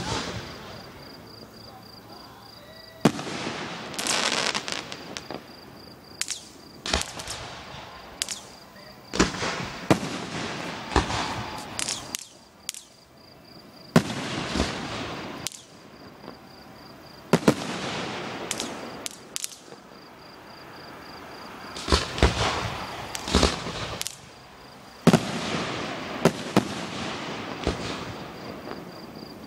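Aerial fireworks display: shells bursting with sharp bangs every few seconds, often several in quick succession, each followed by a trailing crackle and rush of noise.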